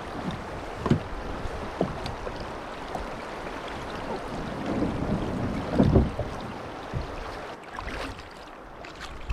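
Wind on the microphone and water moving over a shallow rocky creek edge, with several low knocks and thumps as a plastic fishing kayak is handled in the shallows; the loudest thump comes about six seconds in. Near the end, kayak paddle strokes in quieter water.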